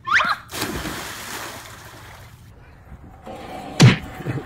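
A short rising cry, then a person splashing into a swimming pool, the water washing and fading over about two seconds. Near the end, one loud thud as people fall onto playground wood chips.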